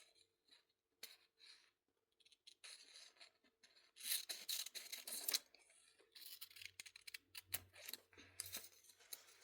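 Pen drawing on paper: short, quiet scratchy strokes coming in irregular runs as zigzag lines are drawn.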